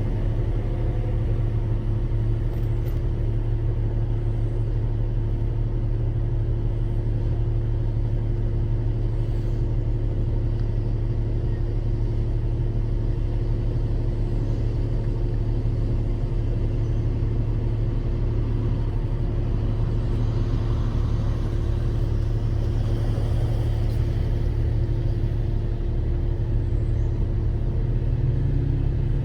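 Off-road vehicle's engine running at a steady, unchanging speed: a constant low drone with no revving.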